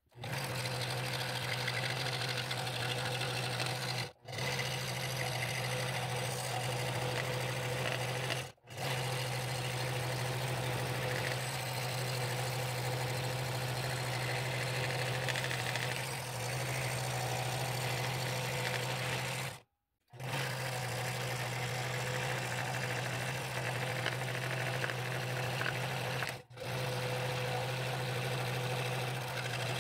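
Scroll saw running with its blade cutting a ring from a glued-up ash and mahogany bowl blank: a steady, even hum that drops out completely for a moment four times.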